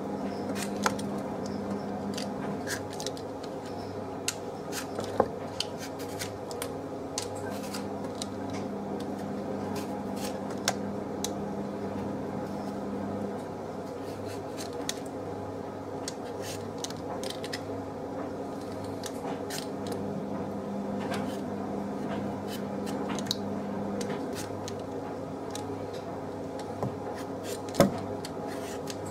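Potatoes being peeled by hand over a bowl: repeated short scraping strokes and small clicks of the blade on the skin. A steady low hum runs underneath, and there is a sharper knock near the end.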